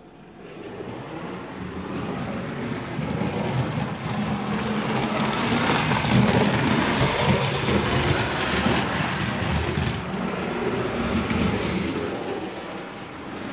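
HO scale model train running past close by, a rumble of wheels on rail and motor hum. It builds over the first few seconds, is loudest in the middle and eases off near the end.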